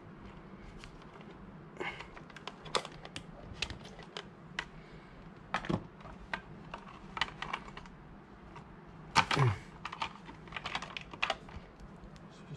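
Irregular clicks and taps of hands handling plastic tubing, fittings and parts around a water-purifier booster pump in a plastic enclosure, with a louder rubbing knock about nine seconds in.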